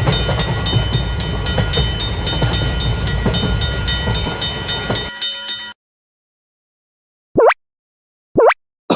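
Passing-train sound effect: a loud rumble with a regular clatter and steady ringing tones, cutting off suddenly about five seconds in. After a short silence come two brief cartoon sound effects, each a quick sweep in pitch, about a second apart.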